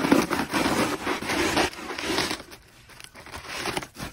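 A knife cutting through the dry, papery carton of a wasp nest, making a dense crackling and tearing. It is loudest for the first two seconds or so, then fainter.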